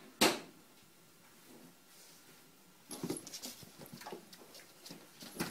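One sharp knock near the start, then from about three seconds in a flurry of scuffling, clicking and pattering as a puppy and a kitten tussle, paws and claws skittering on a wooden floor.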